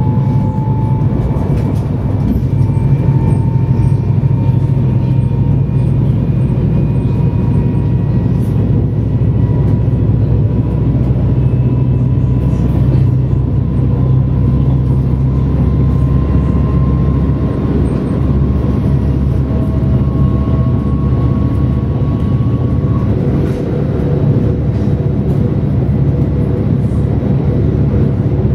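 Siemens Mireo (class 463) electric multiple unit running under full power, heard from inside: a steady low rumble of wheels and running gear with a thin traction-drive whine that climbs slowly in pitch as the train gathers speed. The whine stops about 23 seconds in as a lower tone takes over.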